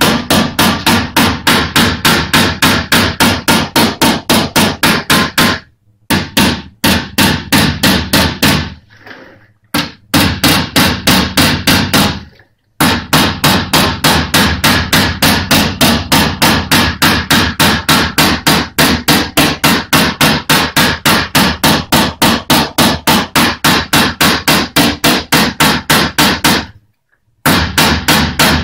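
Rapid, even tapping of a PDR knockdown hammer with white plastic tips striking the steel front wing of a Lada Granta, about four or five light blows a second with a few short breaks: the crease in the wing being tapped down.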